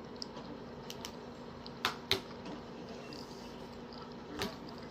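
Three short clicks, two close together about two seconds in and one near the end, over a steady faint hum.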